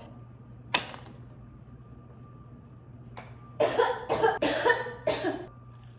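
A young woman coughing: one short cough about a second in, then a run of about four harsh coughs in quick succession past the middle.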